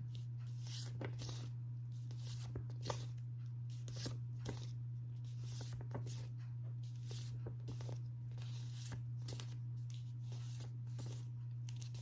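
Quiet room tone: a steady low hum with faint scattered clicks and rustles.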